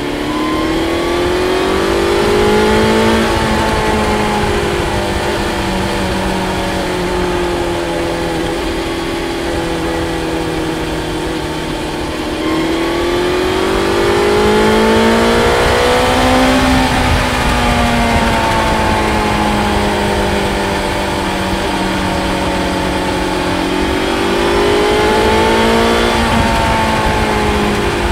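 BMW S1000XR's inline-four engine and exhaust accelerating and then easing off, three times over: the pitch climbs for about three seconds, sinks slowly as the throttle closes, climbs again near the middle and once more near the end. Heard inside a road tunnel.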